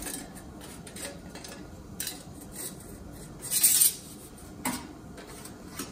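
Metal engine parts being handled: a few light clinks and knocks, with a louder metallic clatter lasting under half a second a little past halfway.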